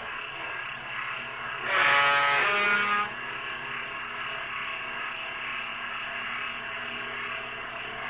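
Electric arm-type swing-door openers, one motor in each upper corner, running as they swing a pair of wooden carriage garage doors closed: a steady motor hum with a whining gear tone. It grows louder for about a second, some two seconds in.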